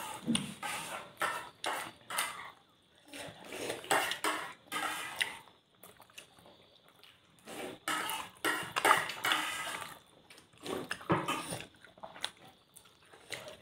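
Eating sounds: soft, irregular clicks of chewing and lip-smacking on steamed pork momos, with light knocks of fingers and food against a plate.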